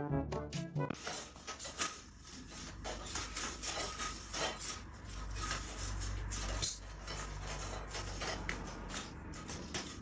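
A brass music phrase ends in the first second, then come irregular light clicks and clinks over a steady low rumble of background noise.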